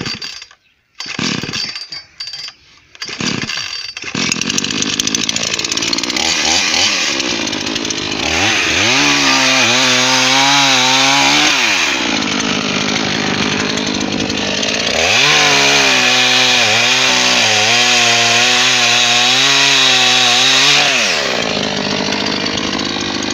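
Tatra Garden MS 215 two-stroke petrol chainsaw pull-started. It fires in a few short sputters, then catches and runs steadily about four seconds in. It is revved and cuts through branches twice, the engine note dipping and wavering under load, then drops back to a lower, steadier run near the end.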